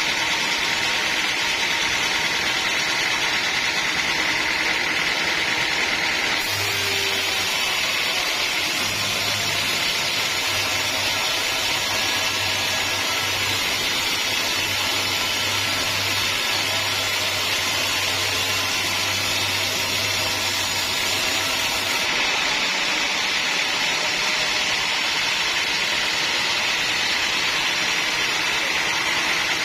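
Sawmill machinery running steadily, a saw working through a teak log. A low hum joins it about six seconds in and drops out again about twenty-two seconds in.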